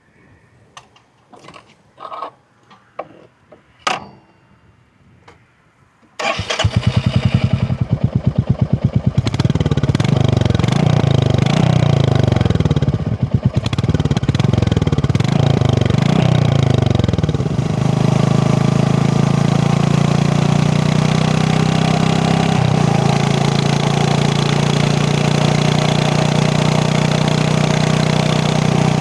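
A few light clicks, then a Royal Enfield Classic 350's single-cylinder engine starts about six seconds in. It is revved up and down repeatedly, then settles into a steady idle with its deep 'dugg-dugg' thump.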